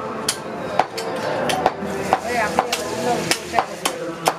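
Meat cleaver chopping goat meat and bone on a wooden log chopping block: a run of sharp chops, about two to three a second.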